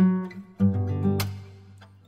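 Background music: acoustic guitar strumming two chords, one at the start and another about half a second later, each left to ring out.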